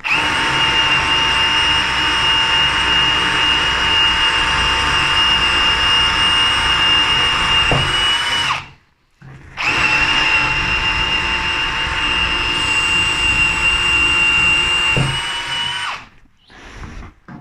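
Bosch GSB 18V-150 C brushless cordless drill boring into wood with a multi-purpose bit: two long steady runs with a high motor whine, the first about eight seconds, then a pause of about a second, then a second run of about six seconds. The pitch steps up slightly just before each run stops.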